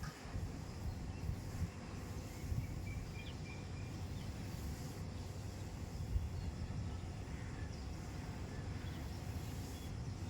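Outdoor ambience with gusty wind rumbling on the microphone, and a few faint bird chirps about two to four seconds in.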